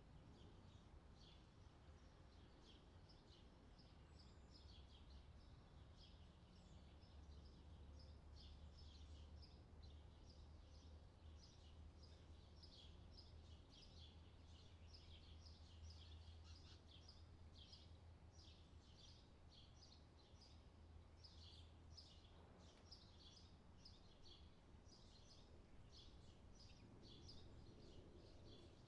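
Near silence with faint bird chirping: quick, high chirps several times a second throughout, over a faint low hum.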